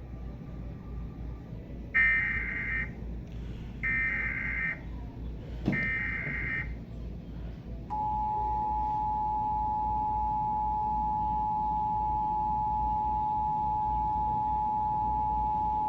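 Emergency Alert System SAME header: three short bursts of screechy digital data tones about two seconds apart, then the two-tone EAS attention signal, a steady dual tone held for about eight seconds. This marks the start of a Required Monthly Test, with the spoken test message to follow the tone.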